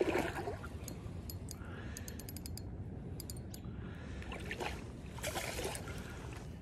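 Fishing reel clicking in several short runs of rapid, even ticks while a big hooked rainbow trout is played on the line.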